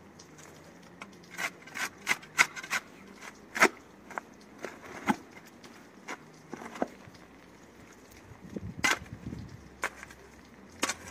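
A steel spade digging into soft, wet soil. The blade is pushed in and levered out in irregular scrapes and sharp crunches, several close together a couple of seconds in and another strong one near the end.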